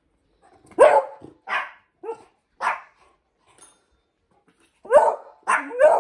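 Pomeranian barking in short sharp barks, about seven in all: a run of four in the first half and a quick burst of three near the end.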